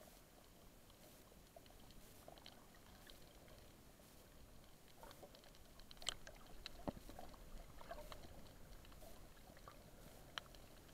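Faint underwater ambience picked up by a submerged camera: scattered soft clicks and crackles, with a few sharper clicks about six to seven seconds in and one near the end.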